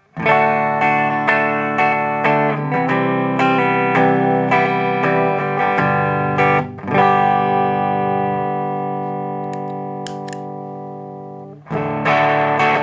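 Electric guitar played through a DIYGP Vulcan Drive pedal built as an MXR Distortion+ clone with three germanium clipping diodes: distorted picked riffs, then a chord struck about 7 seconds in and left ringing for several seconds. It stops briefly near the end, then the playing starts again.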